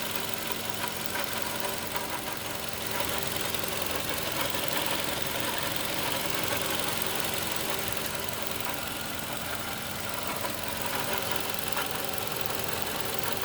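2012 Toyota Camry engine running steadily with an annoying rattling noise from the engine bay. The engine otherwise sounds good, and the cause of the rattle is not known.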